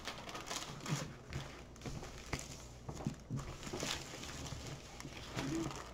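Faint crinkling and rustling of the clear plastic cover film on a diamond painting canvas as hands press and smooth across it, with scattered light taps.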